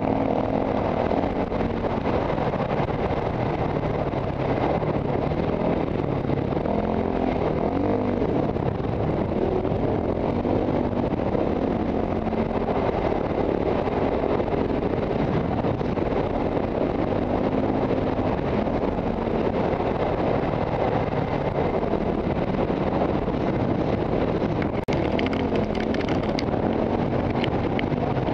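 Single-cylinder KTM dirt bike engine running under load on a trail ride, revs rising and falling as the rider works the throttle and gears, with wind noise on a helmet-mounted camera. A few sharp knocks come near the end.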